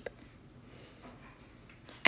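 Quiet pause: faint room tone with a low steady hum.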